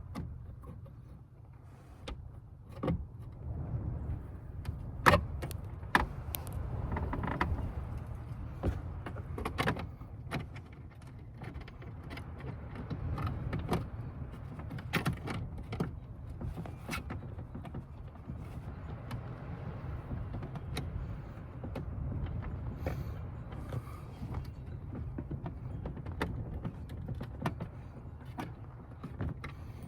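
Hand work on a choke cable installation: scattered sharp clicks and knocks of tools and parts being handled, loudest a few seconds in, over a steady low rumble.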